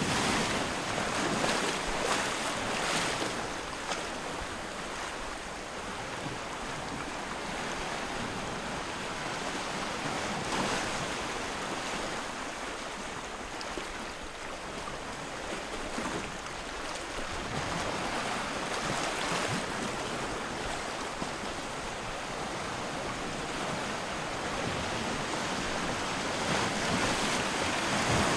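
Steady outdoor rushing hiss of wind and moving water, swelling and easing every few seconds.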